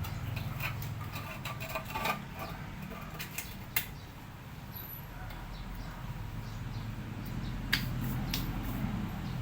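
Scattered clicks and light knocks of hands and tools working on a window-type air conditioner, over a low steady hum; one sharper knock near the end.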